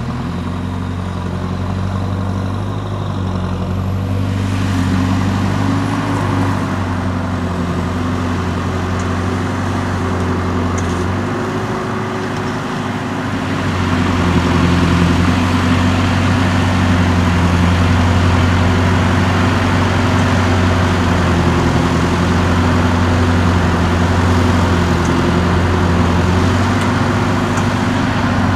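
Large farm tractor's diesel engine running steadily, getting louder about halfway through.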